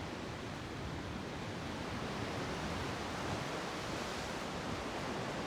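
Pacific Ocean surf washing into a rocky cove: a steady, even rushing of waves.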